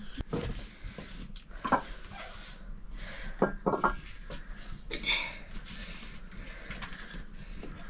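Metal pots and utensils clinking and knocking together: several sharp strikes, a few of them ringing briefly, about two seconds in and twice close together near the middle.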